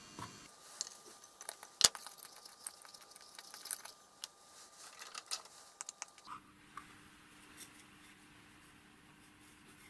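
Hands removing the top cover of an aircraft compass detector head: a run of small clicks, taps and scrapes, with one sharp click about two seconds in. After about six seconds it falls quiet apart from a faint steady hum.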